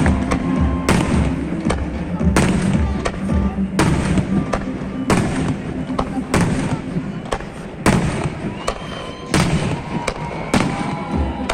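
Fireworks shells bursting in a string of sharp bangs, roughly one a second, over music playing from loudspeakers.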